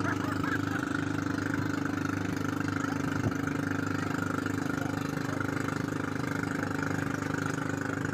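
An engine idling steadily, a constant pitched hum that does not rise or fall.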